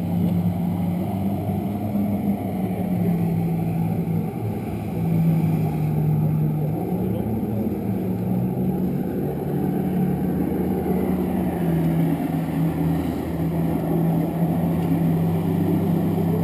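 Jet ski engine running on the lake, a steady drone whose pitch steps up and down every few seconds as the throttle changes.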